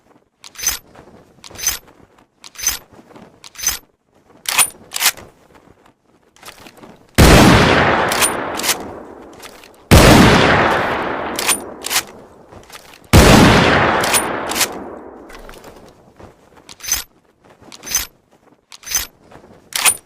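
Winchester Model 1894 lever-action rifle: sharp metallic clicks of the action about once a second, then three shots about three seconds apart, each with a long echoing tail, with clicks of the action worked between them. Near the end there is another run of clicks.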